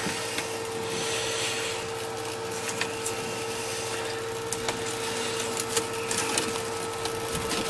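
Steady hum from the running pump and filter of an open Biocube aquarium, with a few light plastic clicks as a filter cartridge is handled and lowered into the rear filter chamber.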